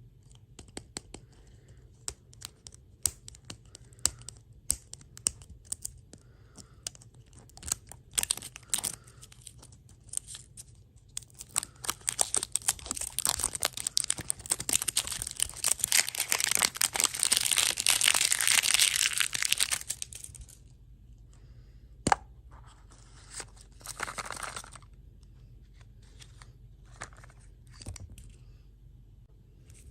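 Close-up crinkling and tearing of plastic food packaging, with scattered clicks and taps; the crinkling is densest and loudest for several seconds in the middle, with a shorter burst later.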